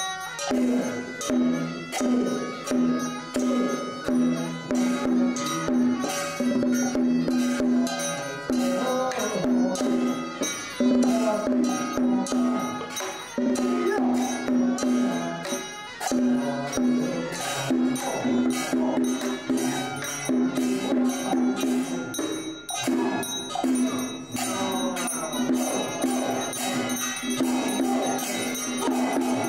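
Traditional Chinese ritual music: a regular percussion beat of about two strokes a second with ringing metal percussion, over a held note that recurs phrase after phrase.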